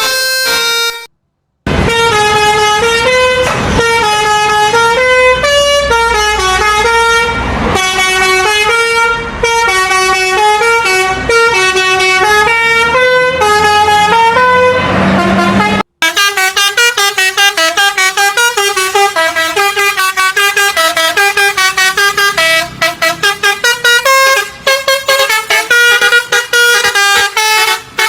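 Indonesian bus 'telolet basuri' musical horns playing loud melodies note by note, in clips that break off briefly about a second in and again about halfway through. The later clip plays quicker notes, with rapid short toots near the end.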